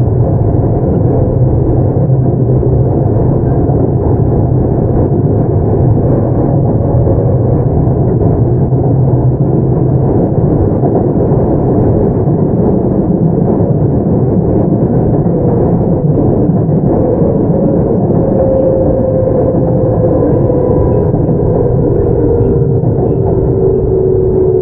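Keio 8000 series electric train with unrenewed Hitachi GTO-VVVF traction equipment, heard from inside the car: a steady running rumble of wheels on rail. From about two-thirds of the way in, a traction whine glides steadily down in pitch, as the train slows.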